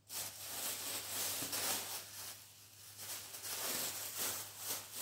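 Thin plastic bag rustling and crinkling as hands rummage through it and pull clothes out, coming and going in uneven waves.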